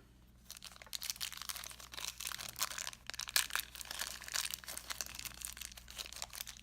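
Crinkling of packaging being unwrapped by hand to get a small blind-box toy figure out: a dense, irregular run of crackles starting about half a second in.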